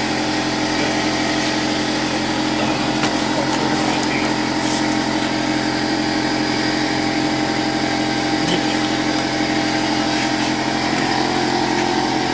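A small engine running steadily with a constant hum that does not change in pitch or level.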